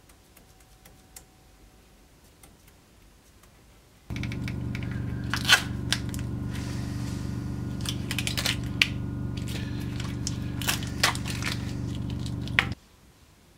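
Tape and resist being handled and peeled off a steel cutlass guard: irregular crinkling and sharp tearing clicks over a steady low hum that starts suddenly about four seconds in and stops shortly before the end.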